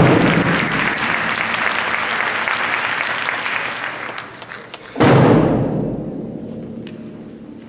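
Audience applause dying away, with a large cheer-squad bass drum struck once at the start and again about five seconds in, each hit ringing out slowly in the hall.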